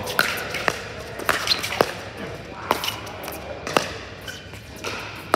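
Pickleball rally: paddles hitting the plastic ball in a string of sharp pops, roughly one a second, echoing in a large indoor hall.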